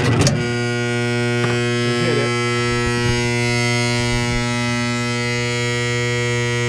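Lennox gas pack's draft inducer motor humming steadily while powered but locked up and not turning, with a brief knock right at the start.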